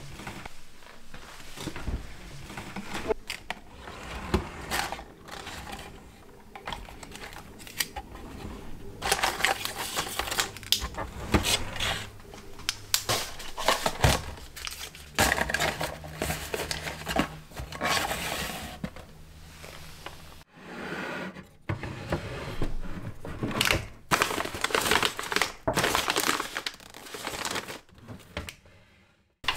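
Plastic and paper food packaging rustling and crinkling as it is handled and sorted, with irregular light clicks and knocks from boxes and containers being picked up and set down.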